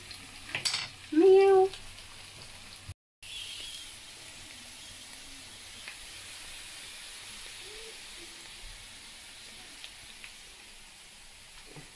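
Potato slices frying in olive oil in a non-stick pan, a steady sizzle. About a second in there is a click, then a short, loud vocal sound from a person. The sound cuts out for a moment around three seconds in.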